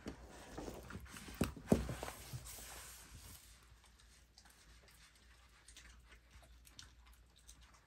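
Welsh corgi chewing a homemade lamb treat: wet chewing with sharp clicks, loudest at two snaps about a second and a half in, then fainter, scattered chewing clicks.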